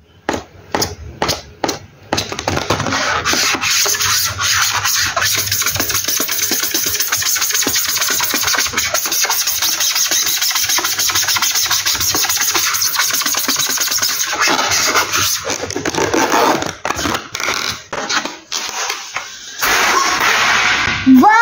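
Latex balloons rubbed and squeezed together by hand, giving a dense, scratchy squeaking. There are a few sharp taps in the first two seconds, and the rubbing becomes patchier after about fourteen seconds.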